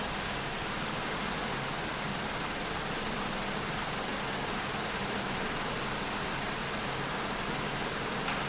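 Steady, even hiss of background noise with no other sound, bar one faint click near the end.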